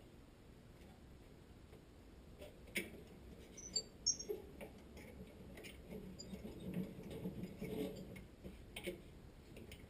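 Scattered light clicks and taps of small tools and parts being handled, with a faint rustle of handling in between; no drill is running.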